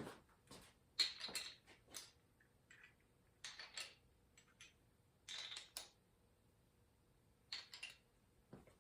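Short, irregular metallic clicks and clinks of engine valvetrain parts, pushrods and rocker arms, being handled and set into place on the cylinder head. There are about a dozen light clicks, some coming in quick pairs.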